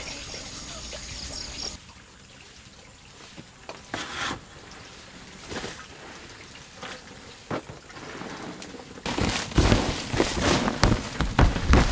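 Chopped green leaves tipped from a woven bamboo tray into a large metal pot and pressed down by hand: scattered rustles and knocks, then dense, loud rustling and crunching of the leaves from about nine seconds in. At the start a steady high pulsing buzz stops short under two seconds in.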